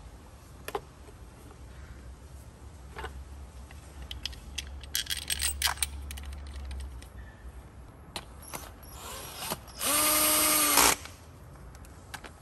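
Clicks and knocks of a plastic ignition coil pack being pressed down onto the engine's valve cover, then a cordless drill-driver running for about a second near the end, driving in a coil-pack bolt.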